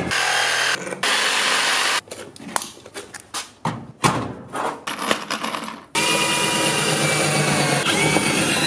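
Cordless drill driving screws into wooden boards. It opens with a couple of seconds of steady running, then a few seconds of short clicks and knocks from handling the drill, and the motor runs steadily again for the last few seconds.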